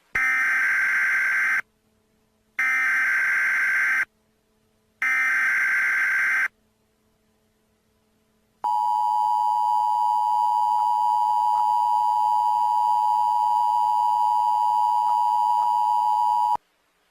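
Emergency Alert System tones: three short bursts of SAME header data, each about a second and a half long with a pause between, then the steady two-tone attention signal held for about eight seconds. Together they mark the start of an emergency alert broadcast, here a tornado warning.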